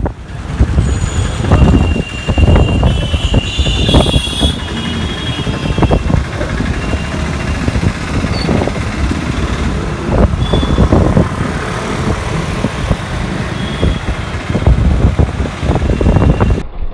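Busy street traffic: running rickshaw and motor-vehicle engines with a constant heavy rumble and knocks, at a loud, steady level. The sound changes abruptly near the end at a cut.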